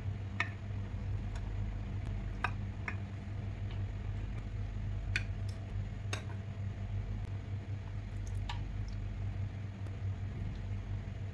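Ladle scooping thin curry sauce in a terracotta dish: scattered light clicks and soft squishy liquid sounds over a steady low hum.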